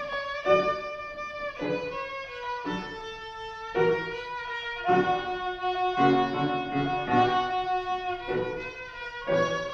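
A child playing violin, a slow melody of held bowed notes, with piano accompaniment underneath.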